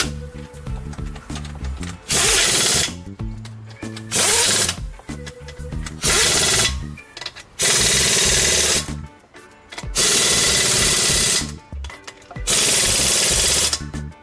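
Impact wrench run in six short bursts, each about a second long, driving lug nuts onto a car wheel.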